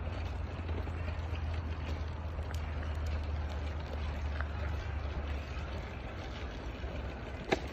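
Steady low rumble with even outdoor background noise, and one short sharp click near the end.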